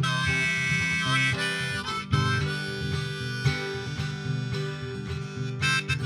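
Harmonica playing a melody over strummed acoustic guitar: an instrumental break in a folk song.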